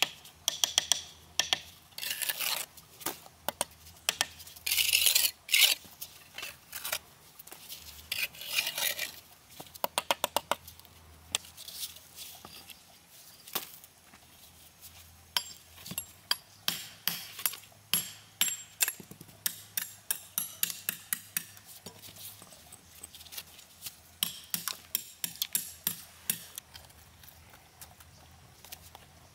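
Steel bricklaying trowel scraping and spreading cement mortar, with runs of quick metal taps as bricks are knocked down into the mortar bed. The longer scrapes come in the first ten seconds; the tapping runs on through the rest.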